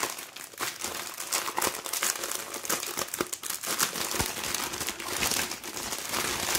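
Clear plastic packaging of a diamond painting kit crinkling and crackling as it is handled, a dense run of small crackles.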